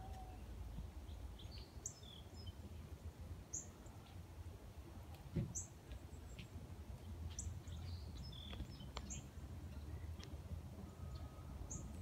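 Small songbirds chirping faintly: short, sharp high chips every second or two, with a few lower calls among them, over a steady low rumble. One soft thump about five seconds in.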